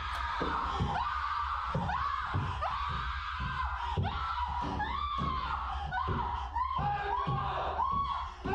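A voice making repeated short cries that rise and fall in pitch, about two a second, over a low steady hum.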